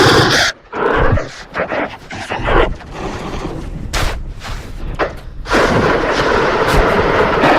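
A logo jingle mangled by heavy audio effects: loud, distorted, choppy bursts that stutter in and out, turning into a steady harsh wash of noise from about five and a half seconds in.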